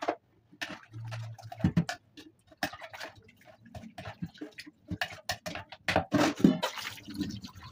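A spoon knocking and scraping against a stainless steel bowl as tripe is stirred in hot water, a series of irregular clinks and knocks.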